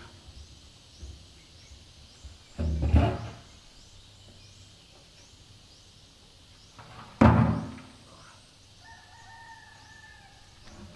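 Empty steel oil drums being knocked and handled: two loud hollow knocks, about three seconds in and again about seven seconds in, each dying away quickly. A faint held tone is heard near the end.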